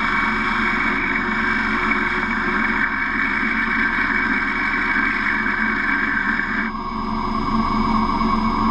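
Metal lathe boring the inside of a spinning round workpiece with a boring bar: a steady cutting hiss and whine over the hum of the running lathe. The cutting noise stops suddenly about seven seconds in as the cut ends, leaving the lathe running.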